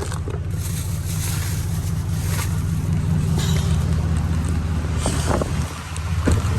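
A vehicle driving through heavy rain: a steady low engine and road drone under the hiss of rain and water spray, with several louder swishes of water.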